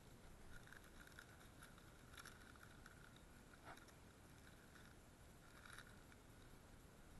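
Near silence, with faint, brief rustles and clicks from hands handling a cloth bag and its contents, at irregular intervals.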